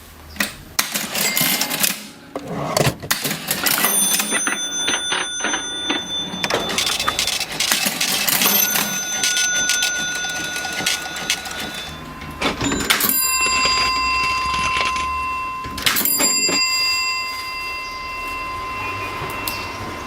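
Vintage mechanical cash register: keys and mechanism clacking rapidly, then its bell ringing four times, each ring lingering a few seconds.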